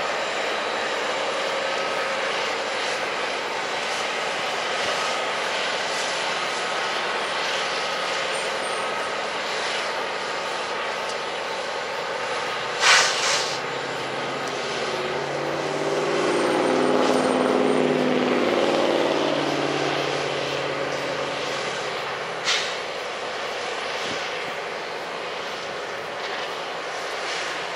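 Diesel freight locomotives running, a steady heavy engine drone, with one engine's note rising and growing louder from about 15 seconds in and easing off by about 22 seconds. A short sharp noise cuts in about 13 seconds in, and a smaller one near 22 seconds.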